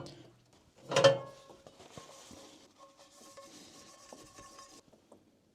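A single clank of cookware being handled about a second in, with a faint tone that rings on for a few seconds over a soft hiss, which cuts off suddenly shortly before the end.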